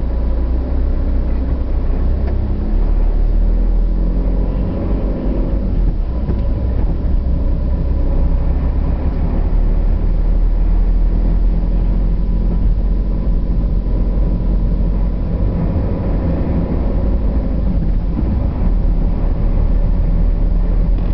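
Vehicle engine and tyre noise heard from inside the cabin of a moving car: a steady low rumble.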